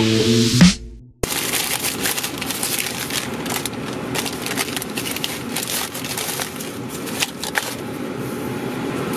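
Plucked-string intro music ends less than a second in. After a brief silence, a paper bag crinkles and rustles with many small crackles as a hand rummages in it.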